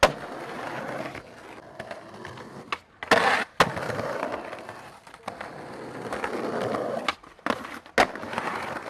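Skateboard wheels rolling on concrete, broken by sharp clacks of the board popping and landing: one at the start, a cluster a little after three seconds in, and more near the end.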